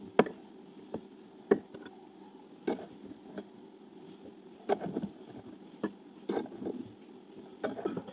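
Metal spoon clinking and scraping against an opened tin can of kidney beans and a plate, irregular sharp clicks every second or so, over a steady low hum.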